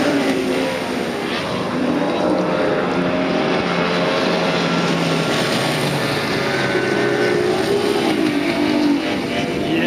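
Outboard engines of tunnel-hull racing powerboats running at full speed past the shore, a high, steady engine tone. The pitch drops as a boat goes by at the start, and it wavers and drops again as a second boat passes near the end.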